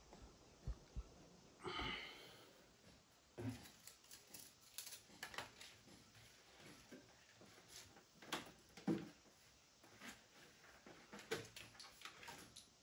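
Faint handling noise of a flexible LED light strip being moved and held against a TV: scattered small clicks and taps, with one longer rustle about two seconds in.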